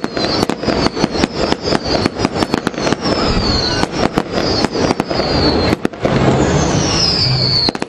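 Fireworks going off: a rapid string of sharp bangs, about four a second, with high whistles that fall in pitch. The bangs thin out about six seconds in, leaving one long falling whistle.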